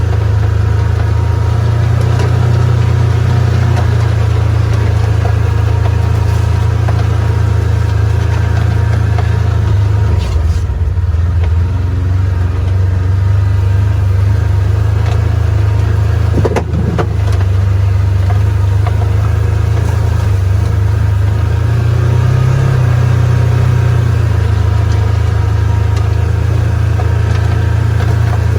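Polaris 4x4's engine running steadily under way, a low drone whose pitch shifts briefly near the middle and rises slightly about three quarters of the way through. A single knock about halfway through.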